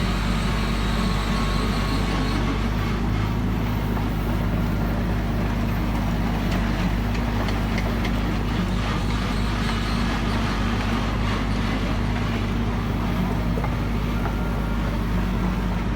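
Kobelco SK120 hydraulic excavator's diesel engine running steadily at a constant pitch.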